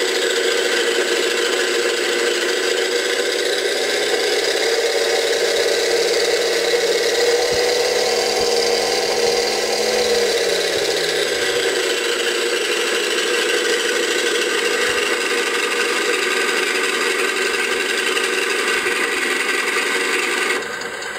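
An RC airplane's onboard engine-sound system playing a simulated V4 engine through its speakers at about half volume. The pitch rises as the throttle is slowly advanced, holds for a couple of seconds, then falls back to idle, and the sound cuts off just before the end.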